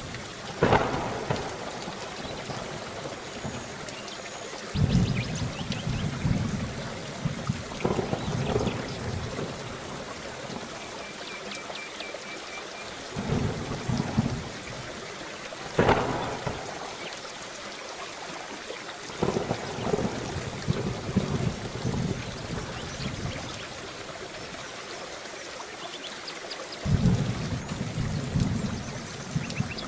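Steady rain hissing, with thunder rumbling again and again every few seconds. Two of the peals, about a second in and about halfway through, open with a sharp crack.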